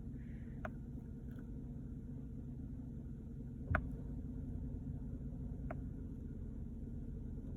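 Pickup truck engine idling steadily, with a few faint clicks.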